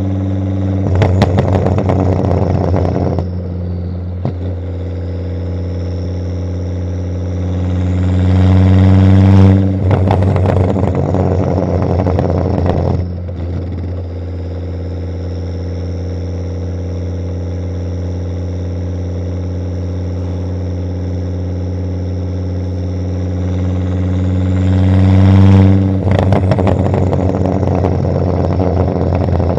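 Volvo S60 2.5T's turbocharged inline-five running through a catless exhaust: a steady low note, revved up twice, each swell followed by a few seconds of crackling pops and bangs as the revs fall. A shorter burst of crackle comes about a second in.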